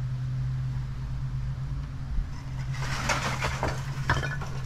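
Steady low mechanical hum, with scraping and rustling twice near the end as a hand works a pull string through a tight gap at the base of a stucco column.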